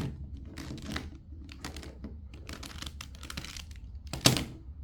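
Plastic twisty-puzzle cube being turned one-handed: a quick, irregular run of plastic clicks and clacks, with one sharper, louder clack about four seconds in.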